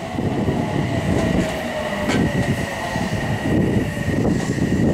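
Odakyu electric commuter train running in toward the station platform, with a steady high-pitched whine over the noise of its wheels and one sharp click about two seconds in.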